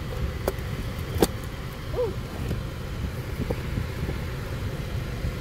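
Steady low rumble of a car cabin, with a few sharp clicks from a paperboard takeout box being opened and handled.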